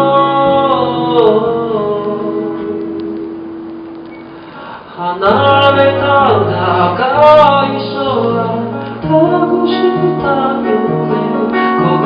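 A man singing a slow ballad live while playing an acoustic guitar. A long held note fades away over the first few seconds, then a new sung phrase starts about five seconds in over the guitar's low notes.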